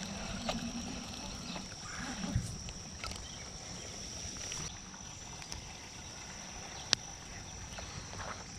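Light water splashing and rustling as a hooked bass is worked free of pond reeds, over a steady high-pitched hum, with one sharp click about seven seconds in.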